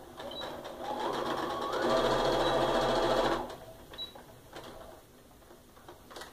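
Sewing machine stitching a seam through pieced cotton, speeding up in two steps and then stopping sharply about three and a half seconds in. A few light clicks follow.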